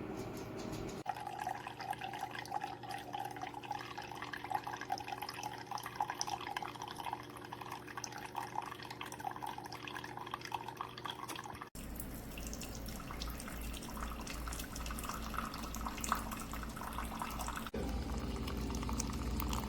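Keurig K-Brew+Chill single-serve coffee maker brewing, with liquid streaming and trickling into a cup. In the later part a low pump hum runs under the stream, and the sound changes abruptly twice.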